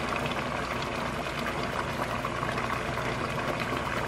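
Ground beef cooking in a pot on the stove, sizzling steadily with fine crackles, as canned tomato sauce is poured over it.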